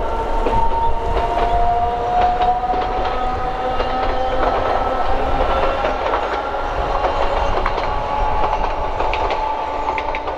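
Narrow-gauge (762 mm) Hokusei Line electric train running past: a steady whine of a few tones that climbs slowly in pitch, over a low rumble, with scattered clicks of the wheels over the rails.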